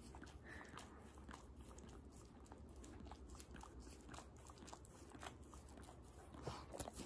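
A dog licking a person's face close up: faint, wet licking and lip-smacking, many small irregular clicks.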